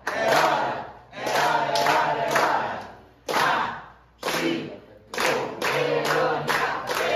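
A group of people singing and chanting a Portuguese birthday song in loud phrases with short breaks between them, keeping time with hand clapping. The clapping grows steady and strong over the last couple of seconds.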